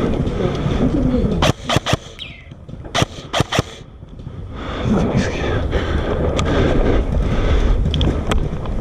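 Sharp airsoft gun shots in quick clusters: about three shots near a second and a half in, three more around three seconds in, and a single shot near the end, with people's voices in the background.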